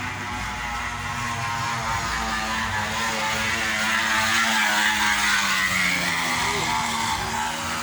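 A motor vehicle's engine running with a steady drone, growing louder to a peak about two-thirds of the way in, then easing off a little.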